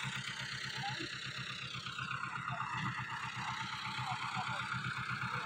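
Diesel tractor engine idling steadily, an even low pulsing beat, under a steady hiss.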